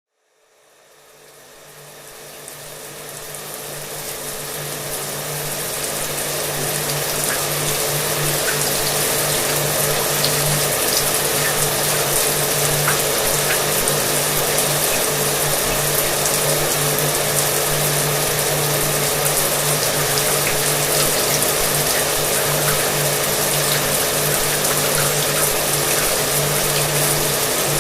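Shower water running steadily, with a hair dryer's motor humming underneath. It fades in from silence over the first several seconds and then holds even.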